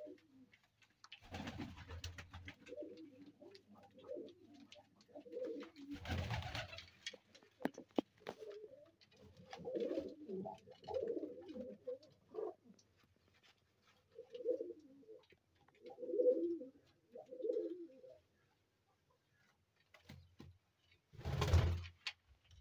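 Domestic pigeon cooing in a string of low, throaty phrases that stop about three-quarters of the way through, with a few short bursts of noise, the last one near the end.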